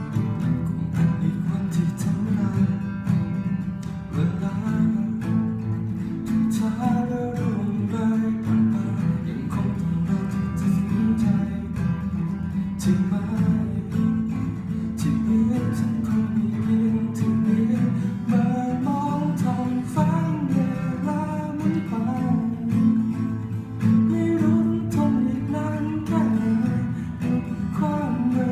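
Acoustic guitar playing a song, strummed chords with a picked melody line over them.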